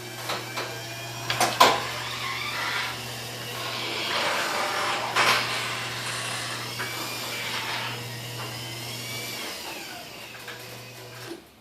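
Chamberlain belt-drive garage door opener running and moving the door, a steady motor hum with a whine and rattle, a sharp knock about a second and a half in, stopping near the end. It is pretty loud, which the owner puts down to the door being unbalanced.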